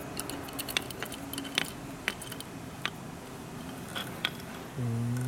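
Small metallic clicks and ticks of a hex key turning in the clamping screw of a Halder soft-face hammer's head as a replaceable insert is tightened back in. Near the end a man's voice starts a long, level hum.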